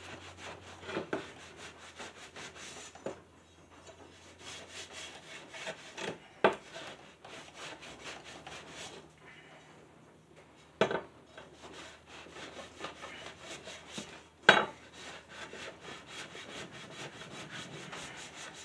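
A cloth rag rubbing and wiping along a steel lawn mower blade to spread and wipe off penetrating oil, a steady scratchy rubbing broken by a few sharp knocks, the loudest about three-quarters of the way through.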